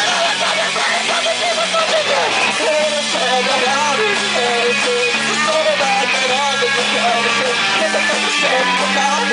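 Live punk rock band playing loudly: electric guitar over a drum kit.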